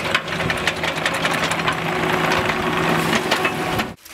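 An engine running steadily at one speed, with a clattering rattle over it; it cuts off abruptly near the end.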